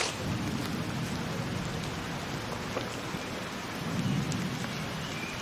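Steady rain with a low rumble of thunder twice, once just after the start and again about four seconds in.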